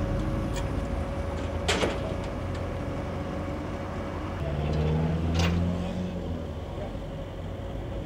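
Motorway traffic with a heavy engine running, swelling louder around the middle and then easing off. Two sharp knocks cut through, one a little under two seconds in and one about five and a half seconds in.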